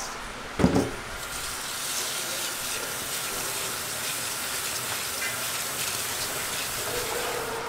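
A metal bowl of rice knocks once against a stainless steel sink under a second in, then a kitchen tap runs steadily into the bowl as hands rub and rinse the raw rice.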